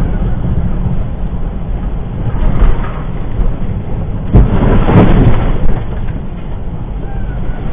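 Steady low road and engine rumble of a vehicle driving on a wet highway, heard from inside. About four and a half seconds in, a louder rushing surge lasts about a second.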